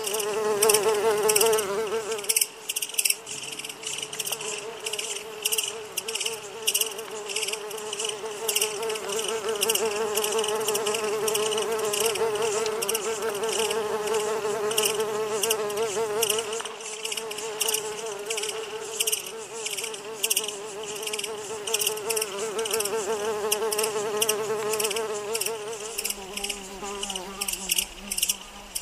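Dense swarm of flying insects buzzing: a steady wavering drone with rapid high clicking layered over it. A lower hum joins near the end.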